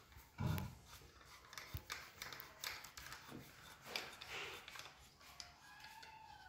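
Faint irregular clicks and scrapes of a toilet pan fixing screw being turned by hand through its plastic cap, with one dull thump about half a second in.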